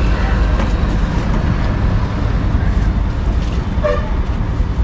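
Steady low rumble of street traffic, with a brief vehicle horn toot about four seconds in.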